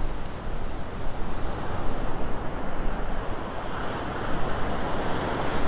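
Gulf of Mexico surf breaking on the beach: a steady rushing wash that swells about two seconds in and again near the end, with wind buffeting the microphone.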